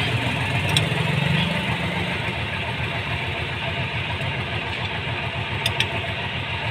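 An engine idling steadily throughout, with a few sharp metallic clicks from an Allen key working the bolts of a tractor engine's main-seal plate.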